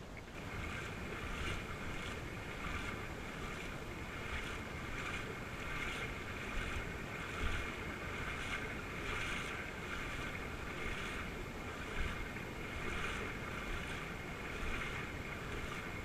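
Kayak paddle strokes in river water, the blades dipping and splashing in a steady rhythm of about one stroke every three-quarters of a second, with a low rumble of wind on the microphone underneath.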